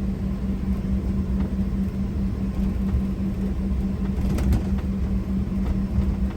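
Steady low mechanical drone with a constant hum, like an engine or machine running without change.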